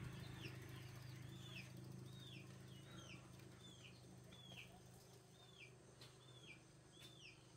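A bird peeping over and over: short, faint chirps that fall in pitch, about two a second, with a faint low steady hum underneath.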